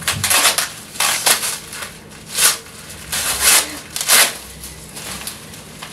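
Coloured adhesive tape being peeled and ripped off the clothes wrapped around a person's body, in about five short bursts.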